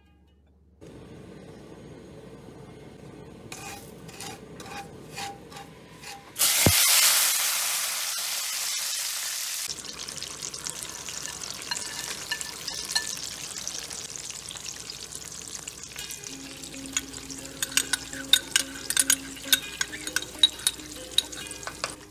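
Sugar-and-oil caramel in a nonstick wok, then a sudden loud hiss about six seconds in as liquid hits the hot pan, fading over a few seconds. The braising liquid then bubbles and sizzles at a boil while whole spices, ginger and scallion drop in with light clicks. Soft plucked-string background music plays underneath.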